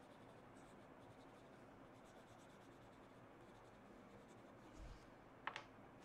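Faint scratching of an oil pastel rubbed across drawing paper. Near the end, a soft thump and then a short sharp tap.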